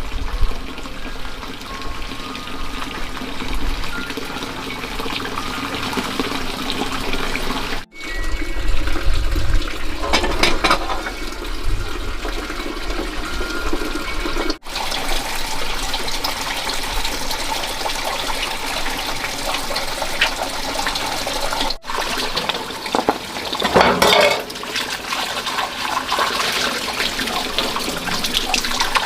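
Water running and splashing steadily, broken by brief gaps about 8, 15 and 22 seconds in, with louder splashing near 10 and 24 seconds.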